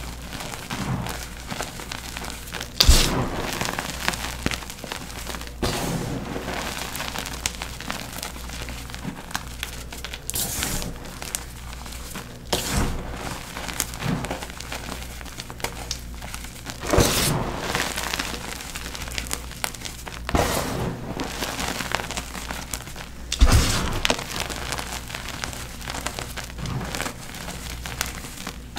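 Gym chalk being crushed and crumbled, a steady crackling crumble with a few sharper cracks as pieces break, the loudest about 3 seconds and 23 seconds in.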